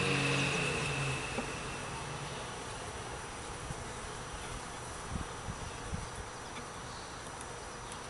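Honeybees buzzing as a steady hum around an open top-bar hive, with a few faint wooden knocks as the top bars are slid into place. A louder, lower hum near the start fades out within the first two seconds.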